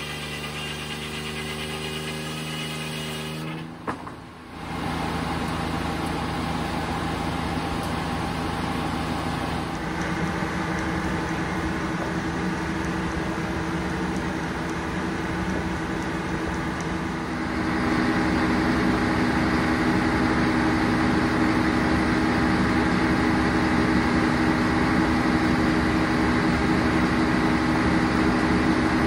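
Three-cylinder Detroit Diesel engine running steadily to power a circular sawmill, a constant hum with several steady tones. It briefly drops out with a click about four seconds in, and gets louder at about eighteen seconds.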